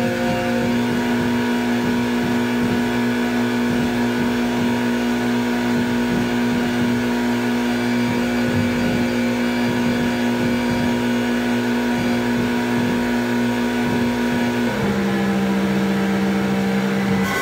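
Homemade light-responsive oscillator synthesiser ("OSC^n") holding a loud, steady, buzzing drone of several stacked tones. Near the end the drone slides down to a lower pitch, its tones following the light falling on the synth's sensors.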